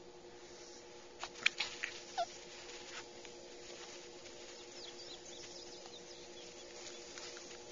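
Puggle puppy giving a few short, high squeaky yips in quick succession about a second in, over a faint steady hum.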